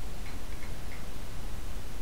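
Steel seat wrench turning a seat inside a three-handle tub/shower valve, giving four faint metal clicks in the first second over a steady low rumble.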